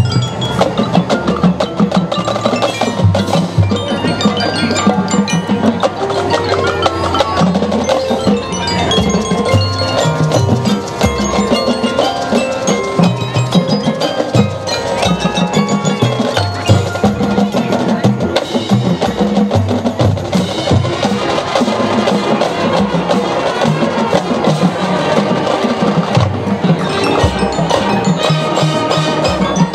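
Marching band percussion section playing a feature: drumline strikes under front-ensemble mallet instruments such as marimba, xylophone and glockenspiel, with ringing bell-like notes.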